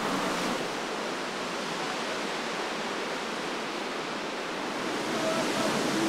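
Steady, even rush of a large waterfall, a little louder near the end.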